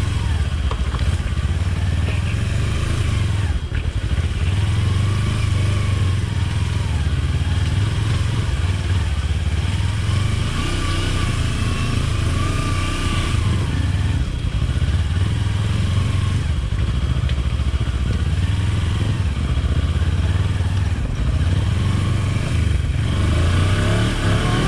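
Motorcycle engine running while riding, its note rising and falling with the throttle.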